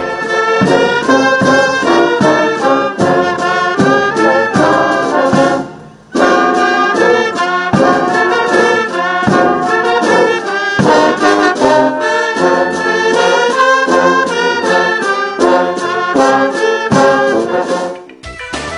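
Military brass band playing, with trombones and a sousaphone. The music breaks off briefly about six seconds in, then resumes, and fades near the end.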